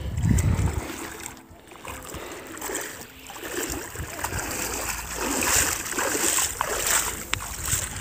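Legs wading through shallow river water, splashing with each step as a person walks out of the river, the splashes growing louder about five seconds in. A low rumbling fills the first second.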